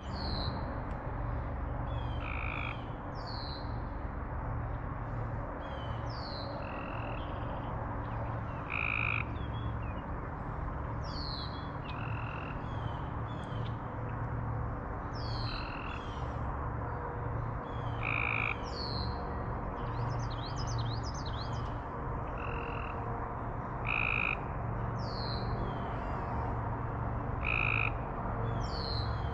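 A chorus of frogs calling from a pond, a steady low pulsing din with short, bright calls repeating about every three seconds. Over it a bird sings quick, high, downward-sweeping chirps every couple of seconds.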